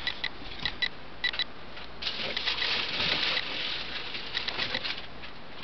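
Scattered light clicks and a brief rustle, about two seconds in, of objects and the handheld camera being handled.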